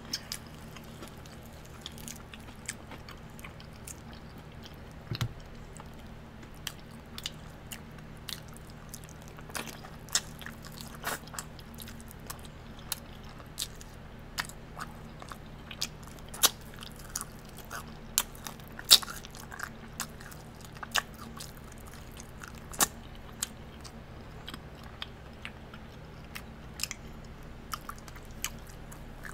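Close-miked chewing and biting of crispy fried hot wings, with irregular sharp crunches a few times a second.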